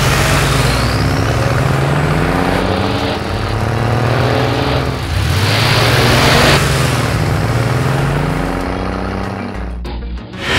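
Engine sound effects revving up and down, over background music. The sound drops away briefly near the end.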